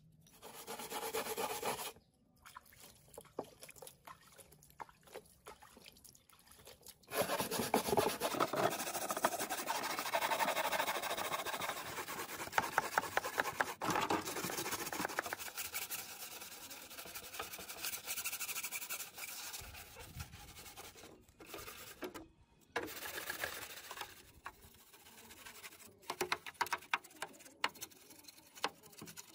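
Stiff-bristled hand brush scrubbing grimy plastic TV cabinet parts wet with soapy water, in rapid back-and-forth strokes. The scrubbing comes in several stretches, loudest through the middle.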